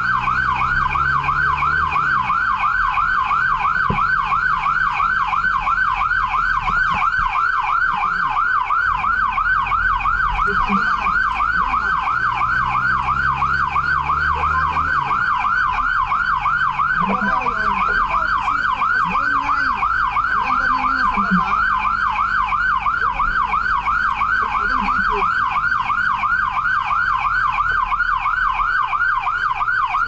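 Electronic siren of a fire truck in fast yelp mode, a rapid, even up-and-down warble that runs without a break, heard from inside the cab. The truck's engine rumbles underneath and swells twice as it accelerates.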